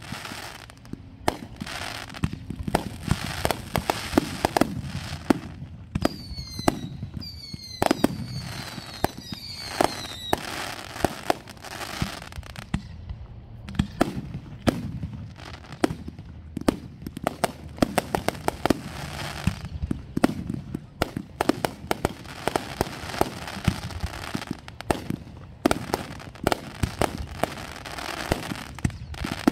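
Aerial fireworks launching and bursting in quick succession: a continuous run of sharp bangs over a crackling haze, with a few falling whistles about six to ten seconds in.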